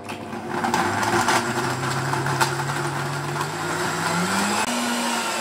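Countertop electric blender running at full speed, chopping fish tails, vegetables and an ice cube into leche de tigre, with rattling knocks from pieces striking the jar in the first half. Its motor pitch steps up twice near the end as the load eases.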